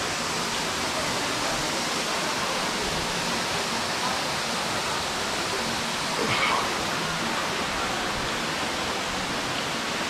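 Steady rush of a rainforest waterfall and its stream tumbling over rocks, an even wash of water noise. A brief, slightly louder sound rises above it about six seconds in.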